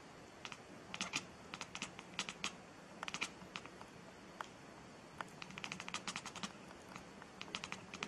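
A domestic cat chattering: quick dry clicks of its jaws in short bursts of a few clicks each, with pauses between, faint overall.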